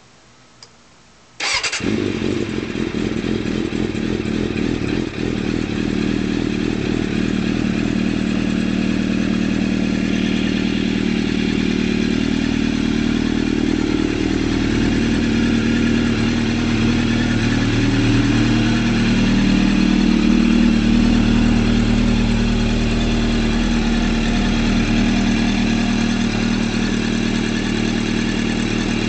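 A 2003 Suzuki Katana 600's inline-four engine starting about a second and a half in, then idling steadily through a full D&D aftermarket exhaust system (header, mid-pipe and black can). The idle lifts a little and settles back about two-thirds of the way through.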